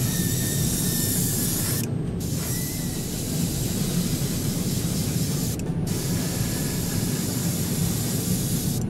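Iwata airbrush spraying white lacquer paint at about 20 psi: a steady hiss of air and paint that stops briefly about two seconds in and again near six seconds, as the trigger is let off between passes, over a steady low hum.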